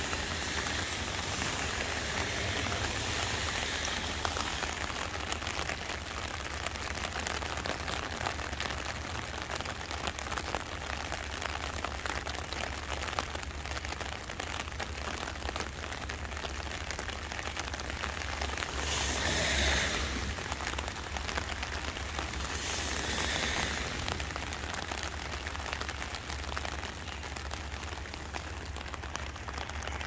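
Steady rain falling, an even hiss. About two-thirds of the way through there are two brief louder swells.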